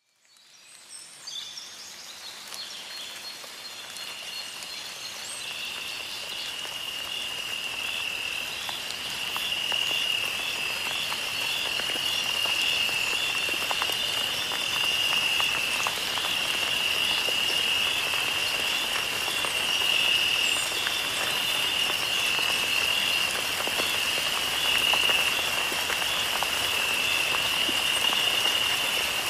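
A steady, high, pulsing chorus of calling insects and frogs over a soft, rain-like hiss, fading up over the first ten seconds or so.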